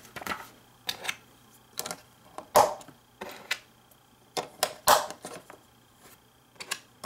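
Plastic LEGO pieces clicking and snapping as orange fender parts are pressed onto a small LEGO City truck, about a dozen short, irregular clicks with the loudest about two and a half seconds in.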